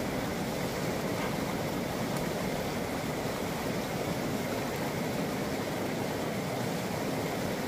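Steady rushing of a shallow stream flowing over rocks.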